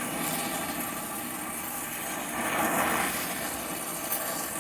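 Gas torch flame burning with a steady hiss while heating a rusted exhaust flange bolt to free it; it swells louder for about a second in the middle.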